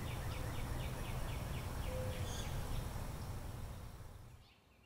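A small bird calling in a quick series of short, high, downward-slurred notes, about three a second, over a steady outdoor background noise with a low rumble. The calls stop about three seconds in, and the whole background fades out near the end.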